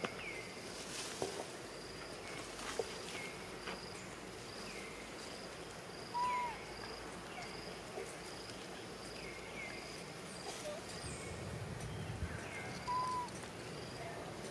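Forest ambience of insects and birds: a high chirp repeating evenly, a little more than once a second, over repeated short falling notes, with a louder short whistled call twice, about six seconds apart.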